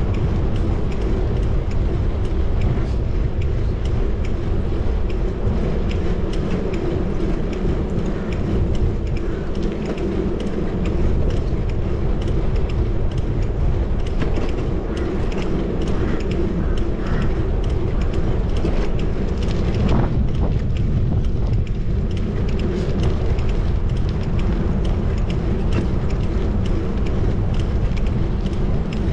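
Steady city street and traffic noise heard from a moving bicycle, with wind rumbling over a GoPro's microphone.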